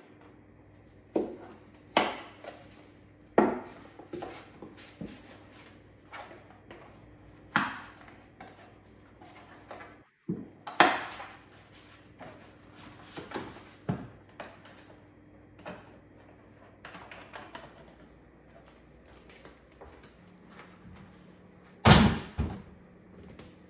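Kitchen handling sounds while a cappuccino is made: a string of sharp clacks and knocks, the loudest near the end, over a faint steady hum.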